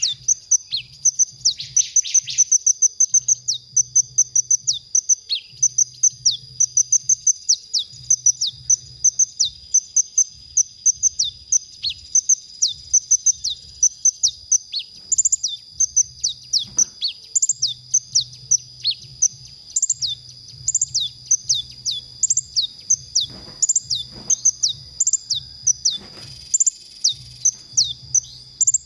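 Male Van Hasselt's sunbird (kolibri ninja) singing a fast, unbroken stream of short high chirps and twitters, many dropping in pitch, over a steady high-pitched whine.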